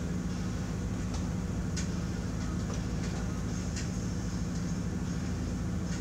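A steady low machine hum, with a couple of light clicks about two and four seconds in.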